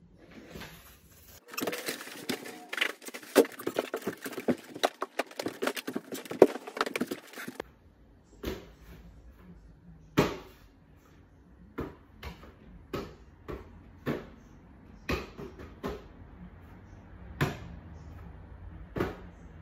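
A basketball slapping into hands over and over as it is tossed up and caught, a sharp thump about once a second in the latter part. Before that, several seconds of dense, rapid clatter and crackling.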